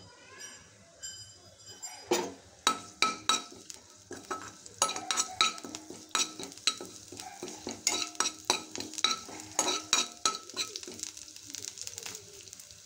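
Spatula stirring curry leaves in a little hot oil in a metal kadai: a light sizzle, then from about two seconds in, rapid irregular scrapes and clinks of the spatula against the pan.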